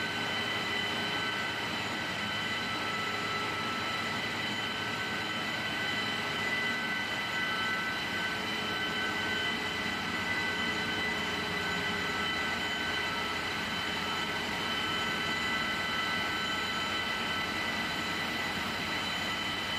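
Steady drone of industrial machinery running in a compressor house, with several high steady whining tones over it.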